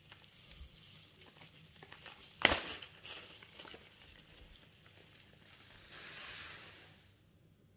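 Bubble wrap crinkling and rustling as it is handled and pulled off, with one sharp snap about two and a half seconds in and a longer rustle around six seconds in. It goes almost quiet near the end.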